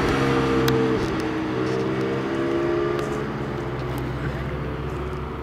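Porsche 718 Cayman GT4's flat-six engine driving away and fading into the distance, its pitch easing slightly downward.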